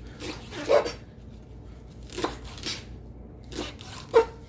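Kitchen knife chopping sweet potato leaves on a cutting board, five separate knocks at an uneven pace, the loudest about a second in.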